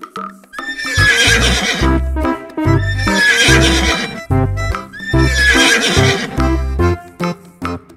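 A recorded horse whinny played as a sound effect over children's background music with a steady bass beat.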